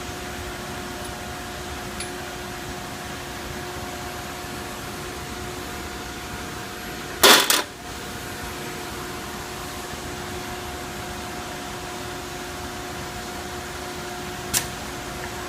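An automated pick-and-place welding cell runs with a steady machine hum. About halfway through there is a loud, sharp burst lasting about half a second, and near the end a shorter, fainter one.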